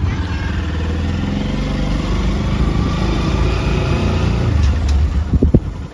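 Motorcycle engine running steadily as the bike rides off, with a few sharp thumps near the end.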